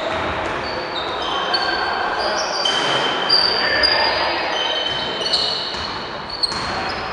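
Basketball play in a gym that echoes: many short, high squeaks of shoes on the wooden court and the ball bouncing, with voices calling in the background.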